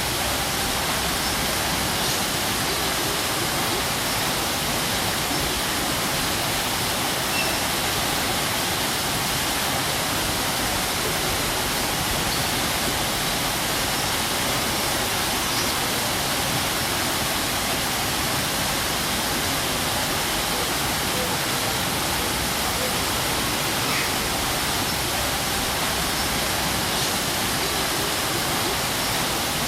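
Waterfall pouring steadily: an even, unbroken rush of falling water, brightest and hissiest in the upper range.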